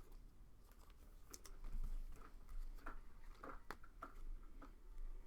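Trading cards being handled and flipped through: a scatter of light clicks and short rustles, faint, with a few sharper taps in the second half.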